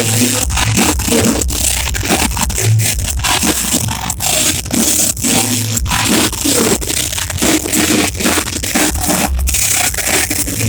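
Heavy rock band playing live, with loud electric guitars, bass and pounding drums. The recording is heavily clipped and distorted, which gives it a crushing, crackling sound.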